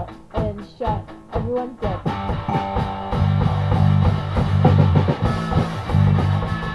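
Rock band playing an instrumental section of a song: guitar, bass and drum kit. Gliding guitar lines open it, and the full band comes in louder about two seconds in.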